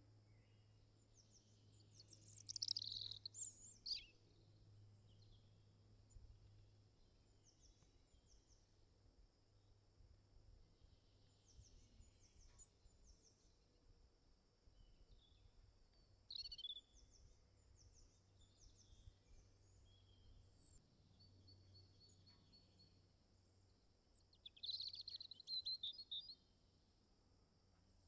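Small birds chirping and calling, faint, with a few louder bursts of calls: about two to four seconds in, once around the middle, and again near the end, over a steady low hum.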